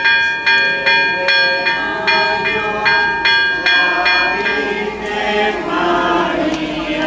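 A single church bell struck rapidly, about two or three strokes a second, each stroke ringing on into the next. The ringing stops about four and a half seconds in and a crowd of people starts singing together.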